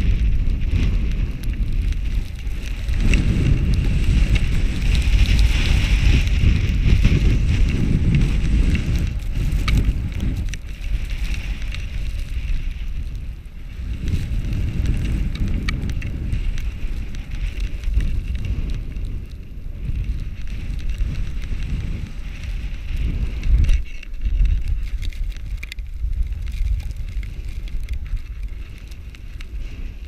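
Wind rushing over an action camera's microphone during a snowboard run, with the hiss and scrape of the board sliding through snow. The noise swells and eases every few seconds as the rider's speed and turns change.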